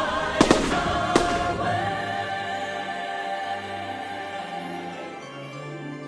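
Fireworks show music with a choir singing, fading steadily. Firework bangs cut through it: two close together about half a second in and one more a little after a second.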